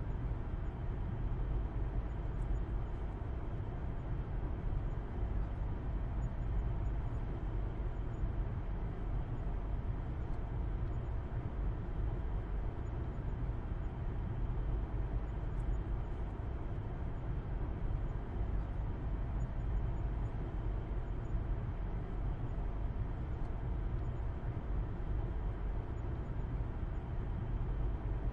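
Steady low rumble of a car driving at an even speed, heard from inside the cabin: engine hum and road noise with no gear changes or revving.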